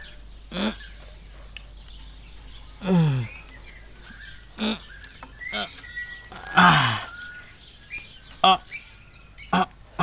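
A man's voice giving short straining grunts, several in a row, each falling in pitch: the effort of heaving a signboard upright. Faint bird chirping runs underneath.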